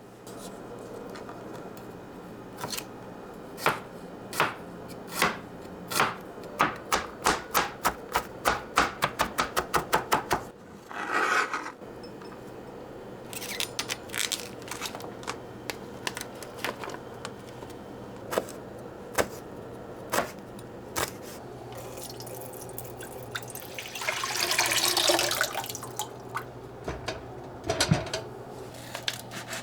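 Kitchen knife chopping on a cutting board, a run of strokes that speeds up, followed by scattered knocks and a short rush of water from a tap near the end.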